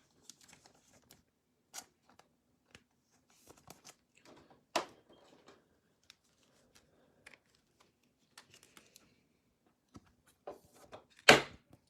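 Trading cards and their packaging being handled: scattered light clicks and rustles, with a sharper click about five seconds in and a louder rustling scrape near the end.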